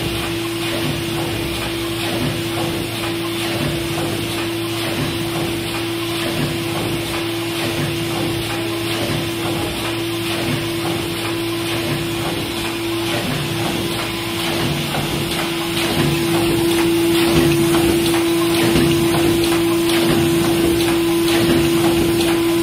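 Automatic pouch spout inserting and welding machine running: a steady hum under a dense, rapid patter of mechanical clicking, growing louder about two-thirds of the way through.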